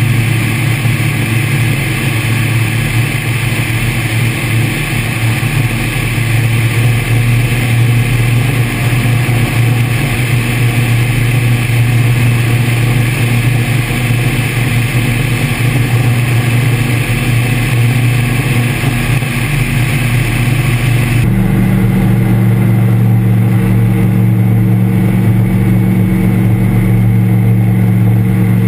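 Engine and pusher propeller of an Air Creation Tanarg microlight trike running steadily in flight, a loud low drone with a rushing hiss over it. About 21 seconds in the sound changes abruptly: the hiss drops away and a higher engine note comes forward.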